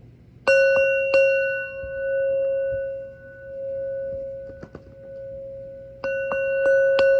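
Singing bowl struck twice near the start and several more times near the end, each strike ringing on in one long tone that swells and fades; rung to clear the energy before a tarot reading.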